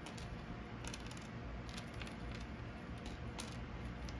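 Thick cardboard game tokens being set down and slid on a wooden tabletop: a scattering of small, irregular clicks and taps.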